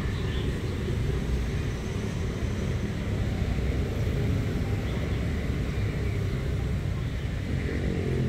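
Steady low background rumble, even in level throughout.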